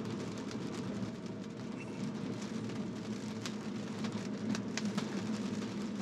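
Raindrops ticking irregularly on the windshield and roof over a steady hum of tyres on wet road, heard from inside the Tesla's cabin.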